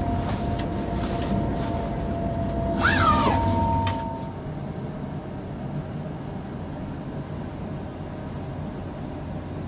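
Running noise of an ICE 3 high-speed electric train heard from inside the passenger lounge behind the cab: a low rumble with a steady two-tone whine, and a brief squeal that falls in pitch about three seconds in. About four seconds in, the sound drops to a quieter, even rumble.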